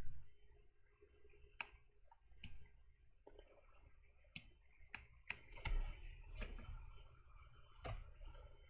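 Irregular, scattered clicks of a computer mouse and keyboard, about nine in all, as shortcuts are pressed and the mouse is clicked while working in 3D modelling software.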